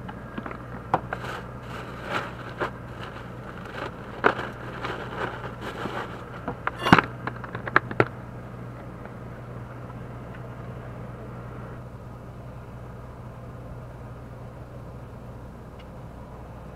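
Irregular clicks, taps and scrapes of hands handling fishing tackle and a caught small fish at a plastic cooler box, loudest about seven seconds in. After about eight seconds the handling stops, leaving a steady low hum and outdoor background noise.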